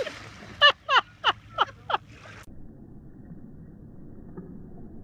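A person laughing in five short, high bursts, each about a third of a second apart. It is followed by a faint, steady outdoor background.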